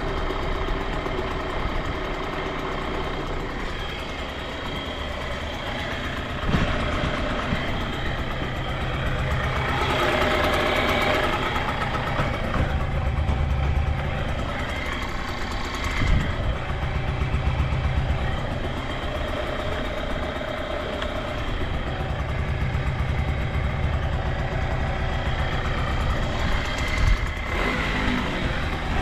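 Yamaha TDR50's small two-stroke single-cylinder engine idling steadily, with a few brief louder swells and knocks along the way. Its seller calls the engine free of abnormal noises.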